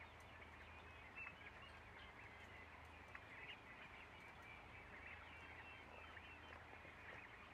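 Faint chirping and peeping of a flock of young turkeys, many short calls overlapping, over a low steady hum.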